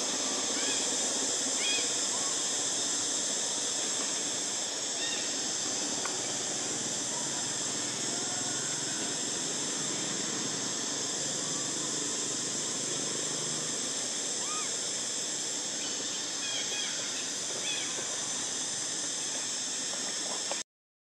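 Steady high-pitched drone of insects, with a few short high chirps near the start and again later on; the sound cuts off abruptly near the end.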